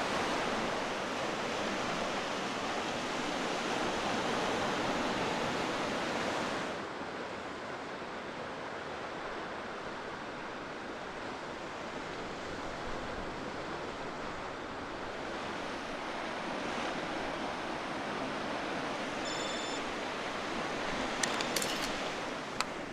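Sea surf washing on the coast, a steady rushing noise of waves that thins and softens about seven seconds in. A few sharp clicks near the end.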